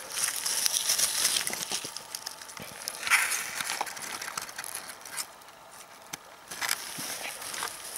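Dry grass rustling and crackling, with many small clicks, as hands handle a caught grayling lying on it. The rustling eases off briefly about five to six seconds in.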